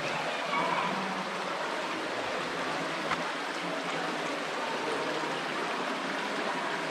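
Shallow creek water running steadily over rocks, a continuous rush of flowing water. A single short click sounds about three seconds in.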